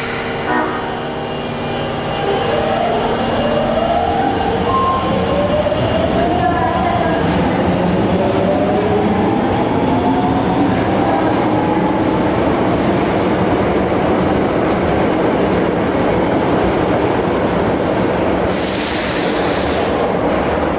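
Osaka Metro 22 series subway train pulling away. Its motors whine in several tones that climb together in pitch over about ten seconds, over a steady rolling rumble. A short hiss comes near the end.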